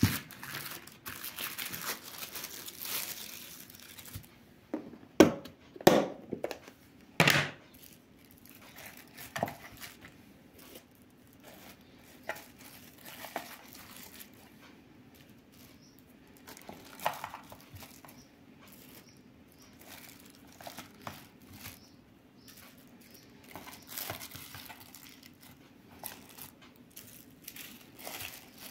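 Thin plastic wrap crinkling as film-wrapped blocks of butter are handled and packed into a plastic container, with a few sharp knocks about five to seven seconds in and lighter taps and rustles after.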